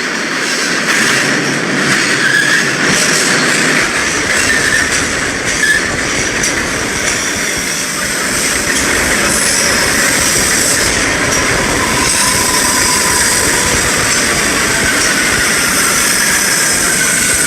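MBTA Red Line subway train running on the rails: a loud, steady rumble and rush of wheels on track, with thin high wheel squeals over it that drift slowly downward in pitch in the second half.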